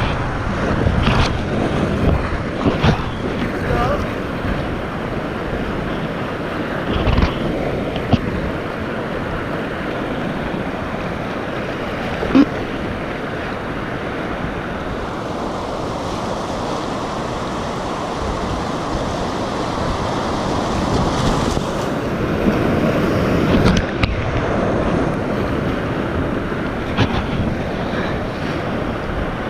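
Whitewater rapids rushing around an inflatable kayak close to the water, a steady loud rush broken by short sharp splashes, the sharpest about twelve seconds in.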